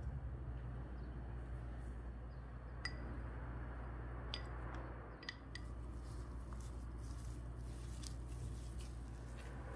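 A few light clinks of a wooden spoon against ceramic bowls, then a soft squishing crackle from about six seconds in as a gloved hand mixes mashed potato, corn and herbs, over a steady low hum.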